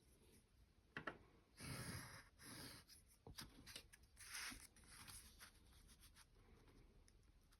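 Pencil drawing lines on paper: a few faint, short strokes.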